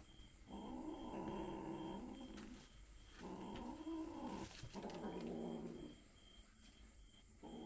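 Kittens growling while fighting over a piece of food, a warning growl over a prized morsel. There are three long, drawn-out growls with short breaks between them, one rising and falling in pitch, then a lull, and another growl starts near the end.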